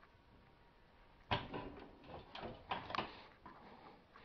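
Floor jack being let down under a car's rear lower control arm: about a second of near silence, then a sudden clunk followed by a few scattered knocks and scrapes.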